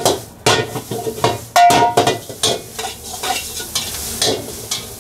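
Noodles stir-frying in a Chinese wok over a high flame: a metal ladle scraping and clanking against the wok as it is tossed, over a sizzling frying hiss. A sharp clang with a short metallic ring comes about one and a half seconds in. The strokes thin out near the end.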